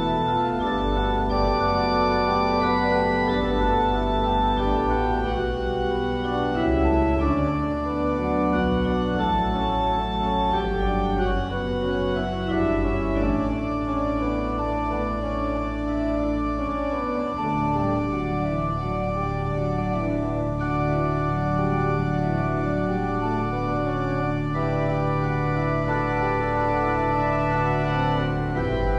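Church organ playing slow held chords over deep bass notes, an instrumental interlude with no singing.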